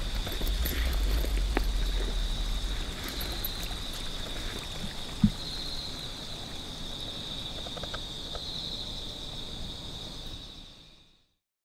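A steady, high-pitched insect chorus from the grass that swells every two to three seconds, with low wind rumble on the microphone at the start and a single short knock about five seconds in. The sound fades out to silence near the end.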